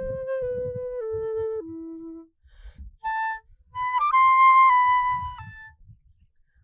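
A flute playing a slow melody of held notes that step down, then after a short pause a brief note and a long higher note, stopping near the end.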